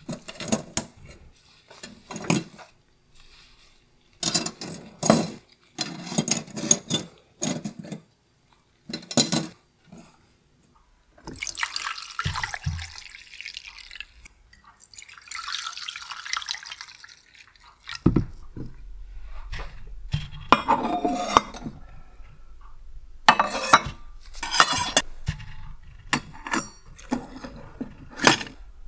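Small metal clinks and taps as watch parts and a mesh cup are packed into a stainless wire cleaning basket, then liquid poured into a stainless watch-cleaning jar, twice. Later a steady low hum sets in under further metal clinks as the basket is set into an ultrasonic watch cleaner.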